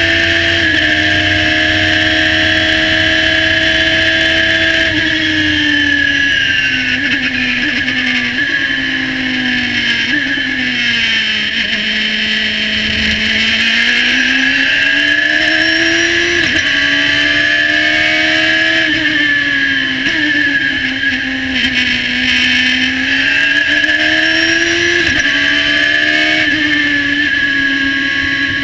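A Radical SR3 1500 race car's four-cylinder engine heard from the cockpit. It is held near 10,000 rpm at full throttle, then falls in steps as the car brakes and downshifts for a slow corner. It climbs again through the gears on the exit and drops once more for a further corner before pulling hard again. A steady high whine sits over the engine note.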